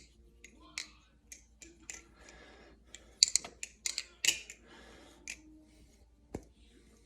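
Nabalis Hydra balisong being flipped: its handles clack and click in irregular sharp strikes, with a quick run of clicks about three to four and a half seconds in.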